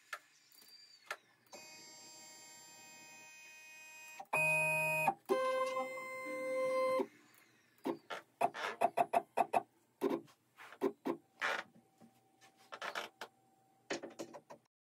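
Shapeoko 4 XXL CNC router's stepper motors jogging the axes, singing in steady tones that jump in pitch as the moves change. A quick string of short whirs follows as the Z axis is stepped down in 1 mm increments.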